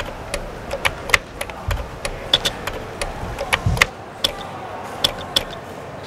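Typing on a computer keyboard: irregular key clicks, several a second, with a couple of deeper thumps among them, thinning out after about four seconds.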